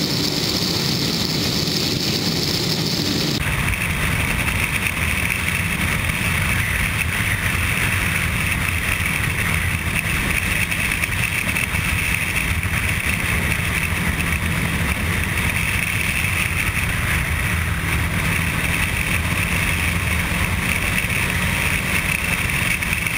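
Sport motorcycle cruising at road speed: steady wind rush over the bike-mounted camera mixed with the engine's drone. The tone changes abruptly about three seconds in, at a cut in the footage.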